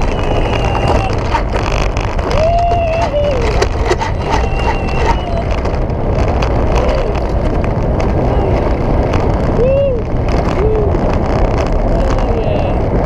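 Mountain coaster sled running fast down its steel rail: a steady, loud rumble and rush of wind. A few short whines rise and then fall in pitch over it.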